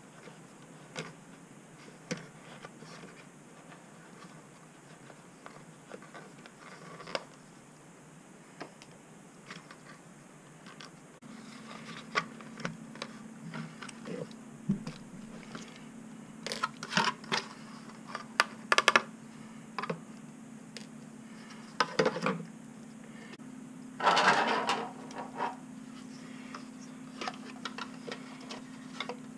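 Small hard plastic parts clicking, tapping and rattling as a 3D-printed body is handled and fitted onto an Axial SCX24 crawler chassis, with louder clusters of clicks and a brief rustle in the second half. A steady low hum sets in about eleven seconds in.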